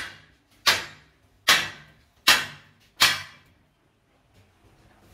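Hammer blows on a steel truck wheel rim clamped in a lathe chuck. There are five sharp metallic strikes about 0.8 seconds apart, each ringing out briefly, and they stop about three seconds in.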